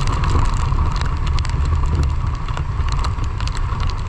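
Motorcycle engine running steadily under way, a low rumble mixed with wind noise buffeting the microphone.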